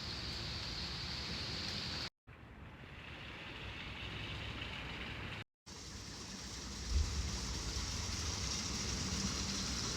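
Steady rush of a creek's running water, broken twice by brief silent gaps where the recording cuts.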